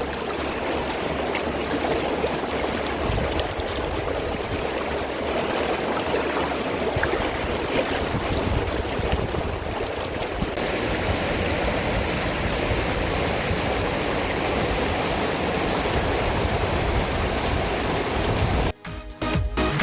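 Valley stream water rushing steadily; the sound of the water shifts about halfway through. Electronic dance music with a beat comes in near the end.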